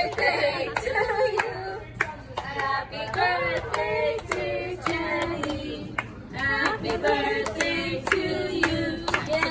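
A group of voices singing a birthday song together, with steady hand-clapping keeping time at about two claps a second.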